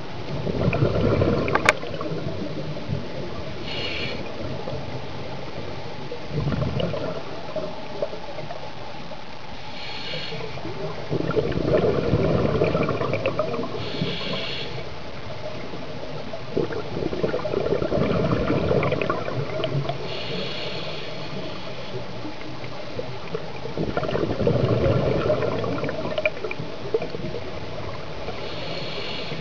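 Scuba diver breathing through a regulator underwater: several rumbling bursts of exhaled bubbles, alternating with short hissing inhalations.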